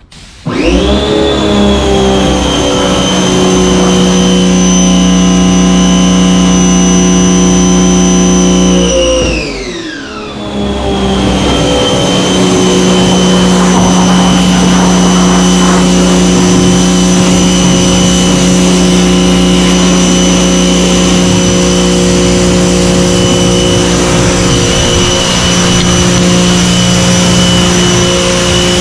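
Giraffe Tools Grandfalls electric pressure washer running with a steady motor whine and hum while its wand sprays water. About nine seconds in the motor winds down, its pitch falling, then starts up again about a second later and runs on.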